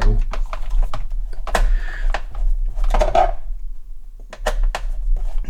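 Plastic case of a Sinclair QL home computer being handled and pried at: irregular clicks, taps and short scrapes, with a steady low hum underneath.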